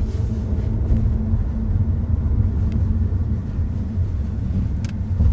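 Car cabin noise while driving: a steady low rumble of engine and road heard from inside the car, with a light click near the end.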